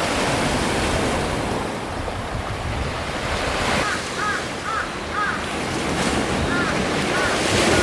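Sea surf washing steadily, with wind buffeting the microphone. From about four seconds in, a few short high calls repeat several times.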